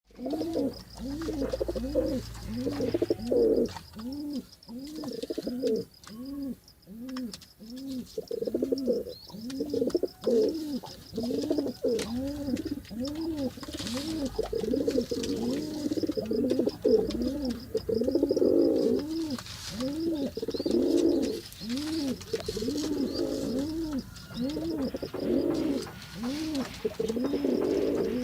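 Pigeon cooing: a continuous run of low, rounded coo notes, about one every half second or so.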